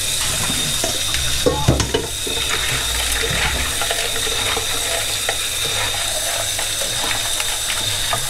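Kitchen tap running into a stainless-steel sink, water splashing over shrimp as they are rinsed and stirred by hand in a colander. A few knocks sound about one and a half seconds in.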